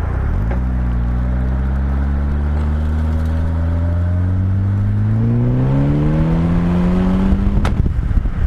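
Westfield SEiW kit car's engine accelerating under load, its pitch rising steadily for about seven seconds. Near the end there is a sharp click and the revs fall, as at a gear change.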